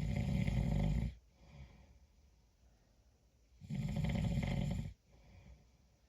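Snoring: two snores, each about a second long and about four seconds apart, with faint breathing in between.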